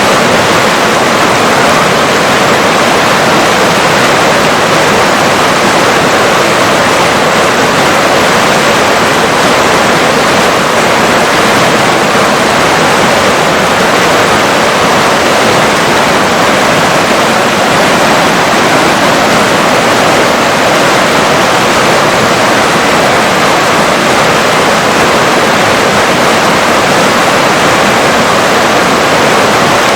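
River water rushing in a steady, unbroken flow, a loud even hiss with no distinct splashes or changes.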